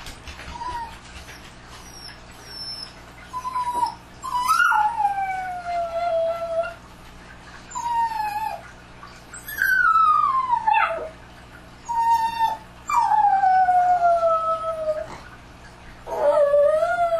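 Dogs howling: a series of long, mournful howls, each sliding down in pitch, starting about four seconds in with short pauses between them, two voices overlapping about ten seconds in.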